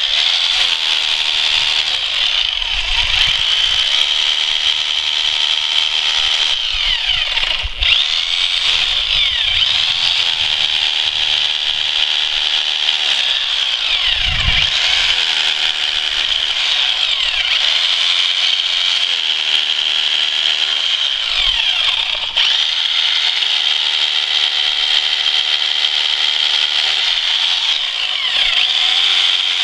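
Bosch Bulldog rotary hammer drill boring holes into limestone, running steadily with a high-pitched whir and two brief dips, about 8 and 22 seconds in.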